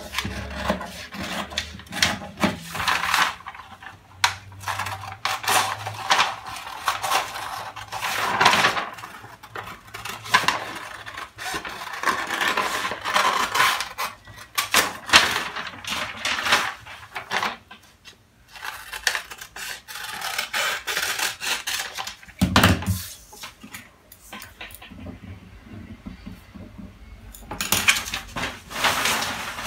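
Scissors snipping through kraft pattern paper, a dense run of crisp cuts with the paper crackling, then the paper crinkling as the cut piece is handled. A single knock about three quarters of the way through.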